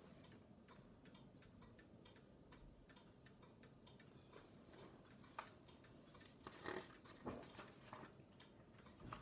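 Near silence: faint room tone with scattered soft clicks, a few slightly louder ones past the middle.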